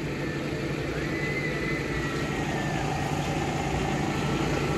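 A steady low engine hum that does not change. A faint, thin high tone sounds over it for about two seconds, starting about a second in.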